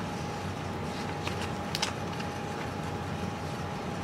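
Steady background room hum with a thin steady tone running through it, and a few faint soft clicks about one and a half to two seconds in.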